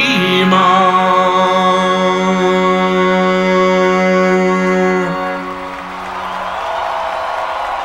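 A man's voice holding the long final note of a song over sustained accompaniment, ending about five seconds in, followed by audience applause.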